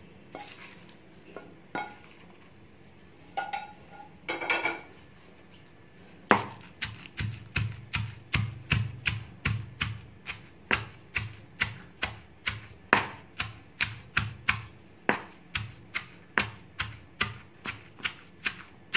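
Stone pestle pounding hot roasted green chillies, garlic and peanuts in a stone mortar (khalbatta), a steady run of dull knocks about two a second that starts about six seconds in.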